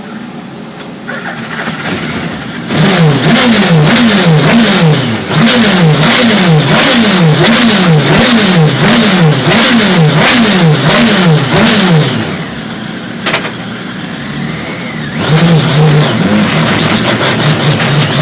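Radical SR3 1500 race-car engine on a dynamometer, its revs surging down and up about once a second in a repeating cycle with sharp regular cracks, the odd misfire it is being tested for. About twelve seconds in it drops to a lower level, then picks up again and holds a steady note.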